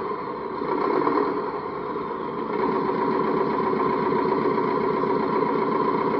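Electronic truck engine sound from an RC dump truck's sound module, idling with a fast, even firing pulse. Its level wavers over the first couple of seconds, then it runs steady.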